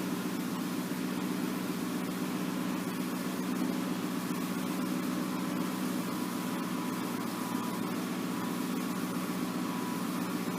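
Ford Mustang engine idling steadily, an even low hum with no change in speed.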